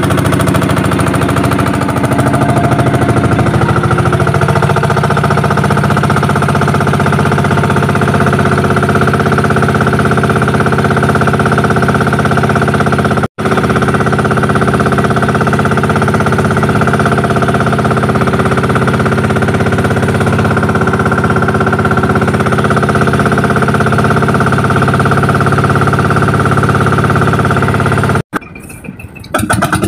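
Small engine of a motorized outrigger fishing boat (bangka) running steadily under way with a loud, even drone. It cuts out for an instant about halfway through, and near the end it stops and a different, quieter sound takes over.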